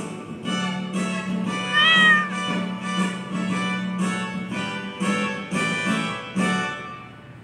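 Electronic keyboard playing a light tune, with notes struck about twice a second over a held low note, fading toward the end. A single short meow rises and falls about two seconds in.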